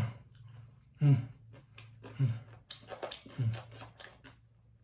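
A man's short, low vocal sounds, each falling in pitch, repeating about once a second with faint clicks between them.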